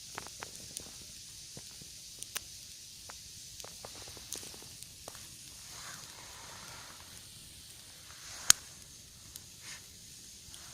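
Campfire crackling: a steady hiss with scattered small pops and one sharp loud crack about two-thirds of the way through.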